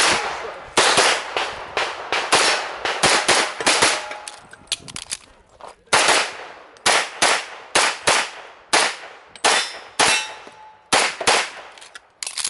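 Semi-automatic pistol fired rapidly, about two dozen shots, mostly in quick pairs a fraction of a second apart with short pauses between groups. A few shots are followed by a brief ringing tone.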